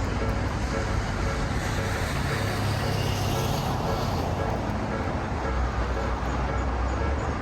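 Steady road-traffic noise with a continuous low rumble of passing vehicles.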